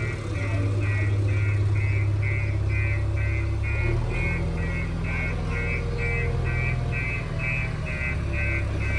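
Heavy machine's diesel engine running steadily, with a reversing alarm beeping about twice a second over it.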